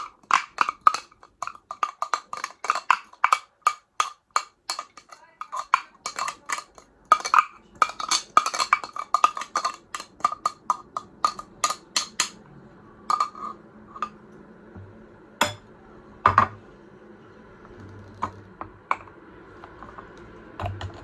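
Hard plastic clicks and knocks from a manual mini garlic chopper's container being tapped and emptied of minced garlic. The knocks come about three a second for the first twelve seconds, then only a few single knocks until about two-thirds of the way in.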